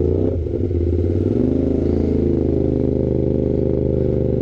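Sport motorcycle engine running at low speed, its note stepping up about a second in and then holding steady.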